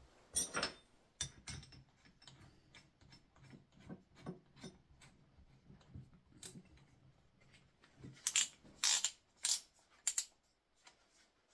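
Small metal tools and parts clicking and clinking as they are handled on a wooden workbench. A run of louder clicks and knocks comes near the end, as the cordless drill is picked up with an Allen key set in its chuck.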